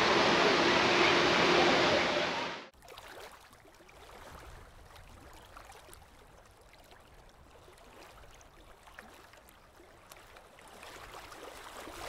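A steady outdoor rushing noise that cuts off abruptly about two and a half seconds in. It is followed by a much quieter stretch with a few faint soft clicks.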